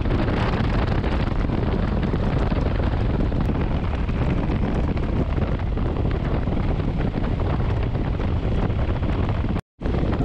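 Wind rushing over the microphone of a Royal Enfield Himalayan 411 motorcycle riding at speed, with its single-cylinder engine and tyre noise underneath. The sound breaks off for a moment near the end.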